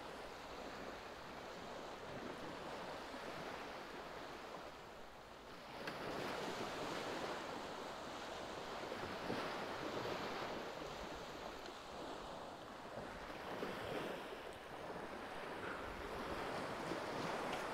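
Sea surf washing onto the beach, a continuous wash that swells and ebbs, growing louder about six seconds in.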